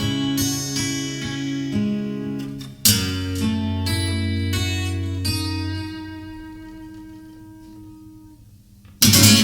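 Acoustic guitar playing the song's closing bars. Picked chords lead to a strummed chord about three seconds in, which rings and slowly fades away, and a sharp strum comes near the end.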